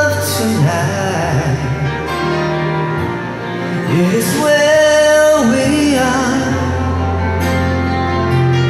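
A man singing karaoke into a handheld microphone, amplified over a backing track with a steady bass. He holds long notes near the start and again around the middle.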